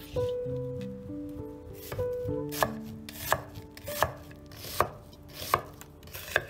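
Chef's knife slicing an onion on a thick wooden cutting board: a crisp knock of the blade through the onion onto the board about every 0.7 seconds, some seven strokes starting about two seconds in, over soft background music.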